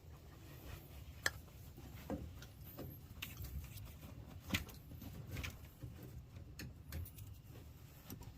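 Scattered light clicks and knocks of hands working with tools and parts, two sharper knocks about a second in and about halfway through, over a low steady hum.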